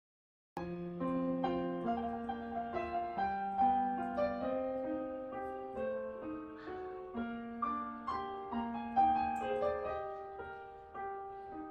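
Background piano music: a gentle melody of ringing notes over soft chords, starting about half a second in after a brief silence.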